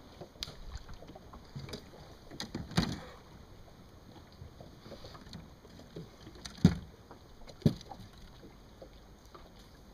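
A few dull knocks and bumps on a fishing boat's deck over a faint steady hiss. One comes a little under three seconds in, and two come close together about seven seconds in, the first of that pair the loudest.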